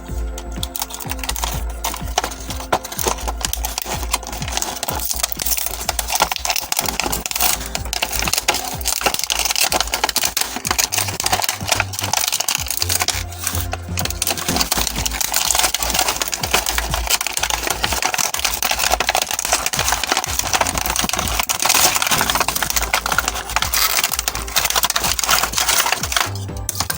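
Background music with a steady bass line, under dense small hard clicks and rattles of plastic toy robot parts being handled and snapped into place during a transformation.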